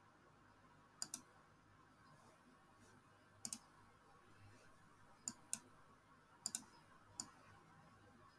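Computer mouse clicking: four quick double clicks and a single click over faint room hiss.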